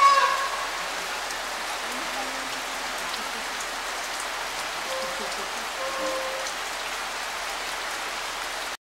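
Steady heavy rain falling on grass and ground, an even hiss. At the very start, a loud high-pitched call dies away within half a second.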